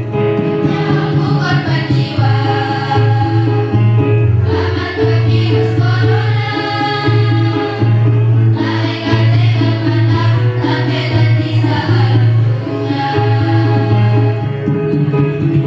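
A choir singing a Madurese song with percussion accompaniment, in phrases a few seconds long.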